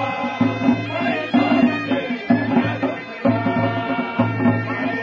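Traditional Uttarakhandi folk drumming: a dhol barrel drum is beaten in a steady repeating rhythm, with a wavering high melody line playing over it.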